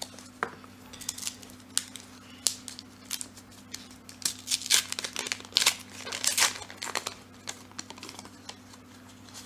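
A foil wrapper of a 1990-91 Upper Deck hockey card pack being torn open and crinkled by hand, in a run of sharp crackling rips that are busiest around the middle.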